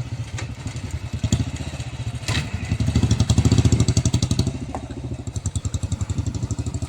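Royal Enfield Bullet's single-cylinder engine running with an even, rapid thump, louder for a second or so around the middle. A single sharp crack sounds a little over two seconds in.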